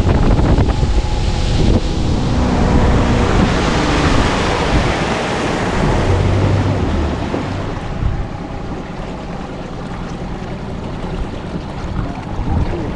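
A motorboat under way on a lake: wind buffeting the microphone and water rushing and churning in the wake, with the outboard motor running underneath. The noise eases off about eight seconds in as the boat slows.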